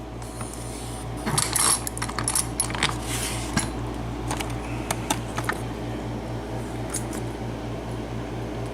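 Small metallic clicks and scrapes of lock-picking tools in a LIPS 5-pin mortice lock as the picked lock is turned open, most of them in the first half, over a steady low hum.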